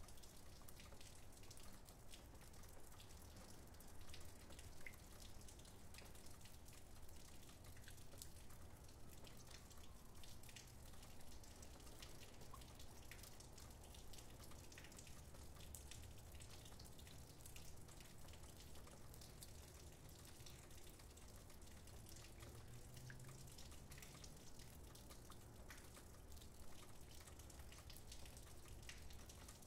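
Faint light rain: scattered drips and raindrop ticks, very quiet.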